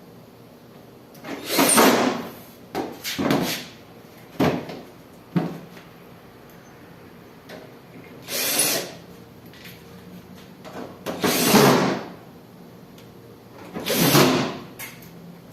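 Sheet-metal top cover of a window air conditioner being fitted and fastened: about seven short scraping and clattering bursts, the loudest near two, eight and a half, eleven and a half and fourteen seconds in.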